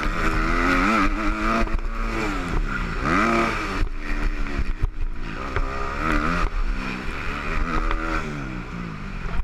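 Motocross bike engine heard from the rider's helmet camera during a race, revving hard and falling back several times in pitch as the throttle is opened and closed through the turns and jumps.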